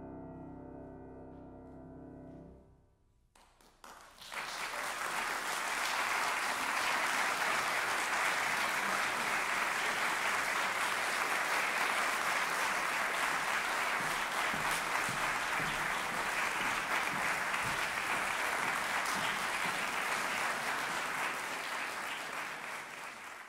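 A sustained final chord of a soprano-and-piano song rings out for about three seconds and dies away. After a brief hush, an audience breaks into steady applause, which fades out near the end.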